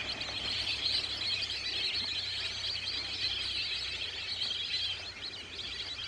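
A large flock of lesser whistling ducks calling all at once: a dense, continuous chorus of high whistled chirps, with a steady low rumble underneath.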